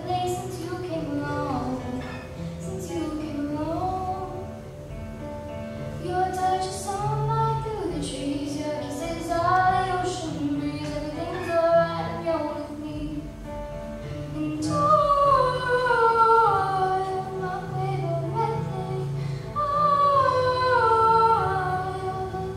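A young girl singing a slow song solo, accompanied by strummed acoustic guitar, her melody falling in long descending phrases.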